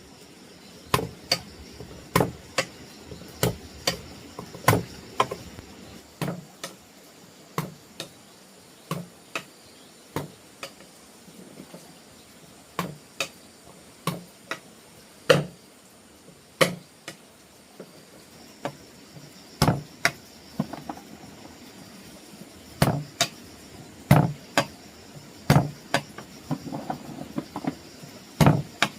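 An irregular series of sharp knocks, roughly one a second and sometimes two close together, over a faint steady high drone of insects.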